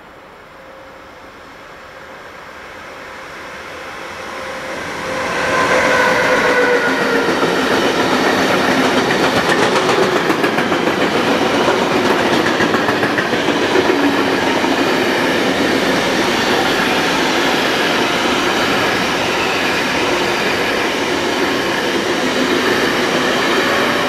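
Intermodal freight train hauled by a Siemens Vectron electric locomotive, DB Cargo 193 325, growing louder as it approaches. About five seconds in it passes close by, with tones that fall in pitch. After that comes the steady rumble and clatter of container and tank wagons rolling past.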